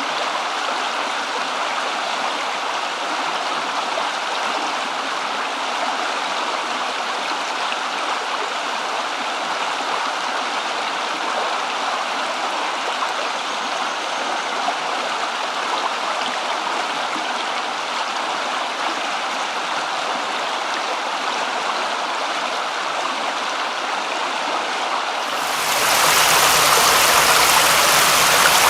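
Steady rushing water, an even hiss of flowing water with no pauses. About 25 seconds in, it abruptly turns louder and deeper.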